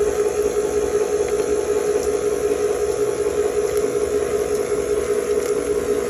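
Electric mixer running steadily at low speed, beating cake batter as the ingredients are worked in, with a steady motor whir and hum.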